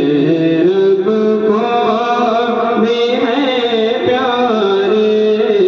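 A man reciting a naat sharif, a devotional poem sung in praise of the Prophet, into a microphone, drawing out long, melismatic held notes that bend up and down.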